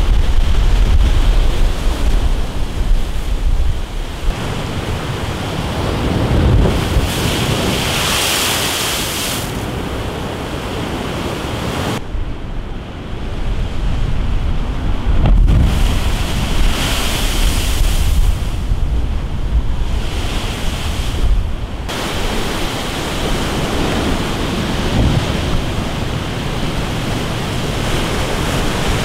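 Storm surf breaking and washing against a concrete sea wall, driven by swell from a hurricane offshore. Wind buffets the microphone with a heavy low rumble, strongest in the first few seconds. The sound changes abruptly a few times.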